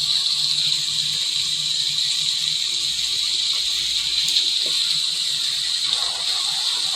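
Recorded rain: a steady, even hiss of falling rain.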